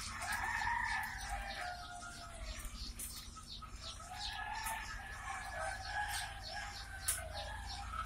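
Newly hatched chicks peeping: many short, high chirps overlapping throughout, with two longer, wavering calls lower in pitch and louder, the first near the start and the second from about halfway to near the end. A steady low hum runs underneath.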